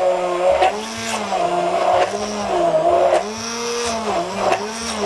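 Handheld immersion blender running in a tall beaker, puréeing cilantro and garlic with oil and white wine into a green mojo. The motor's pitch dips and recovers every second or so.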